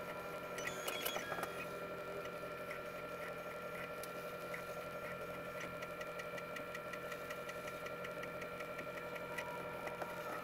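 Prusa XL 3D printer running its tool offset calibration: a steady motor and fan whine with faint, evenly spaced ticking, and a brief cluster of clicks about a second in.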